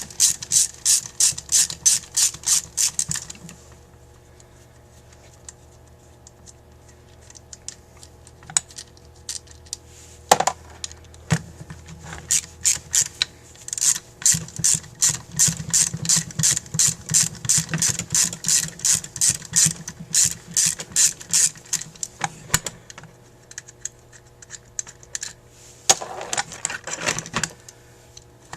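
A ratcheting hand tool clicking in quick runs of about six clicks a second, with pauses and a couple of single knocks in between, as stubborn screws are worked loose on a carburetor body held in a vise.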